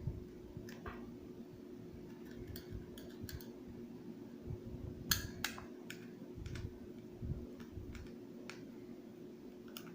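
Small Phillips screwdriver backing screws out of a plastic toy gearbox cover: scattered light clicks and taps of metal on plastic at uneven intervals, over a faint steady hum.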